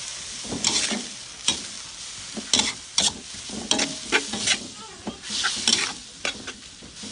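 Metal spatula scraping and tossing fiddlehead ferns in a wok over a steady sizzle of frying. About a dozen sharp scrapes and clacks come at uneven intervals.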